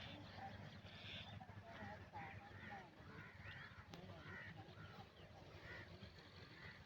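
Faint, scattered chirping and calling of many birds over a low, steady rumble.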